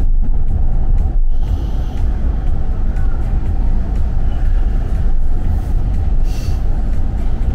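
Steady low rumble of a car driving, road and engine noise, with a brief higher hiss about six seconds in.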